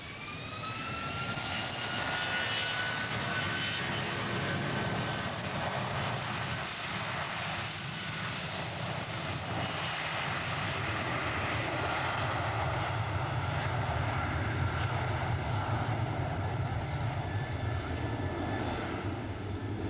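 Boeing 757 twin turbofan engines: a whine rising in pitch over the first couple of seconds as they spool up, then steady jet noise with a deep rumble that grows stronger in the second half.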